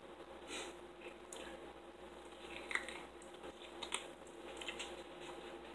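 Close-miked eating: soft chewing and mouth smacks, with a few sharp clicks around the middle.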